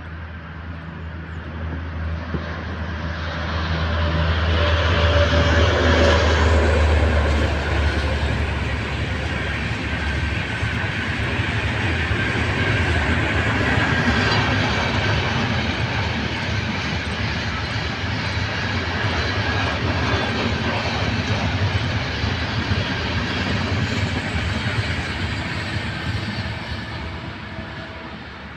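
Antyodaya Express passenger train running past on the track. A low hum and rumble build over the first few seconds and are loudest about five to seven seconds in. The coaches' wheels then keep up a steady rumble and clatter on the rails, fading away near the end.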